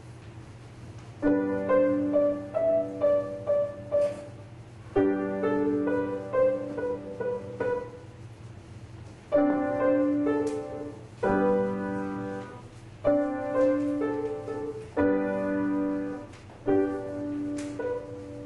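Keyboard playing a slow piece in short phrases of held chords with a melody on top, with brief pauses between phrases, over a steady low hum.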